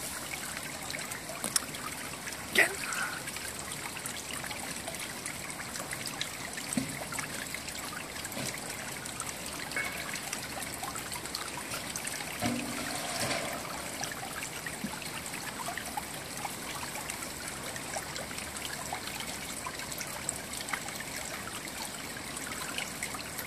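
Steady trickle of running water in the background, with a few faint clicks and a short low sound about twelve seconds in.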